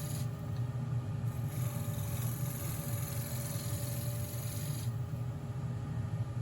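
Wood lathe running with a steady low hum.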